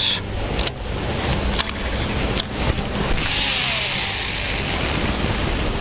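Wind buffeting the microphone in a steady low rumble, with a few light clicks and a hiss that comes in about three seconds in.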